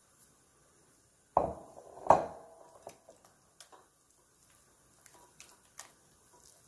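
Two sharp knocks on a glass mixing bowl, about a second and a half and two seconds in, each ringing briefly. After them come fainter, irregular clicks and taps as a silicone spatula stirs a thick cheese mixture against the glass.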